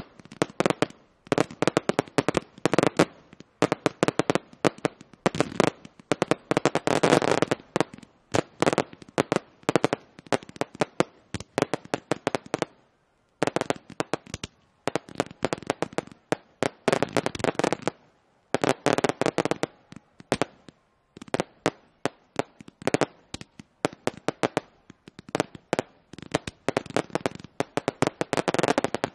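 Several firework cakes firing at once: a fast, dense run of launch pops, bursts and crackles that comes in thick rolls with short lulls between, dropping away briefly near the middle.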